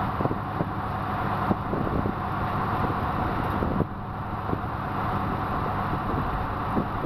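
Steady engine and road noise of a car on the move, with small knocks and rattles throughout.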